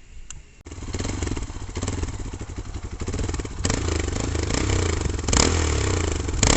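Hero XPulse 200 motorcycle's single-cylinder engine running through an aftermarket Grease House performance exhaust. It comes in suddenly just over half a second in, runs steadily, then is revved, getting louder about three and a half seconds in with the loudest blip a little after five seconds.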